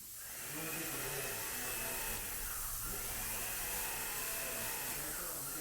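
Steady mechanical whir with hiss from a small motor, holding even throughout.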